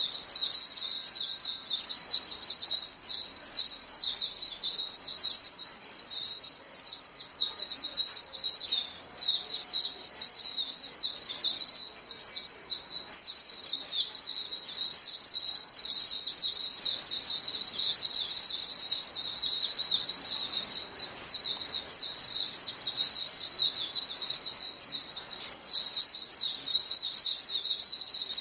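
A flock of white-eyes chirping and calling to one another in a dense, unbroken stream of high, thin, rapid notes, with a short break near the middle.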